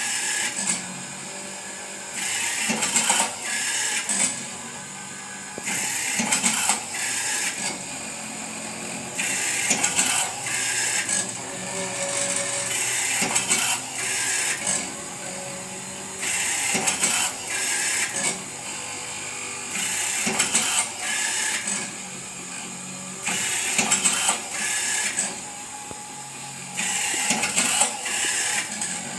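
Automatic cotton wick making machine running through its cycle: a steady mechanical whir that rises into a louder stretch of clicks and knocks about every three and a half seconds, then drops back.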